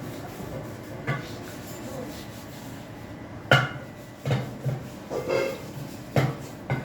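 Dishes and pots being handled while washing up: a series of sharp clinks and knocks over a steady background, the loudest about three and a half seconds in.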